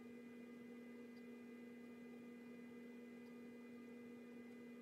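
Near silence with a faint, steady electrical hum: one low tone with a higher overtone, constant throughout.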